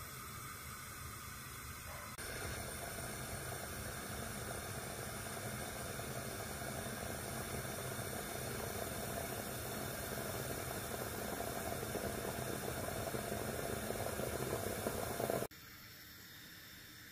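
Steady hiss from a moka pot heating on a lit gas burner, growing slightly louder as it goes. It cuts off suddenly near the end, leaving a fainter hiss.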